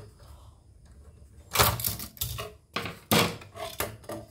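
Clicking and knocking of the metal parts of an opened embroidery machine's head mechanism being handled and worked on with a screwdriver. It comes in two short rattling clusters about a second and a half apart, after a quiet start.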